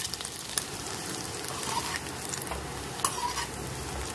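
Mutton muthiya (meatballs) shallow-frying in a little oil in a kadhai, sizzling and crackling steadily, with a few short knocks of the ladle as they are turned.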